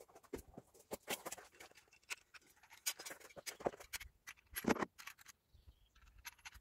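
Scattered clicks and knocks of a corded power tool being picked up and handled, with footsteps on gravel; one louder knock a little before five seconds in. The tool is not running.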